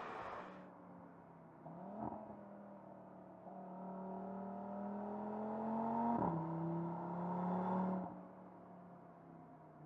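Audi RS 3's 2.5-litre turbocharged five-cylinder engine accelerating: its note climbs steadily, drops sharply with an upshift about six seconds in, then fades to a low hum about eight seconds in.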